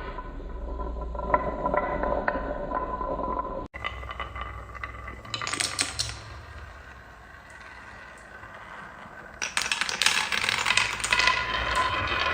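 Marbles rolling and clattering down a toy marble run, with many hard clicks and short ringing knocks. The rattling grows louder and denser from about nine and a half seconds in.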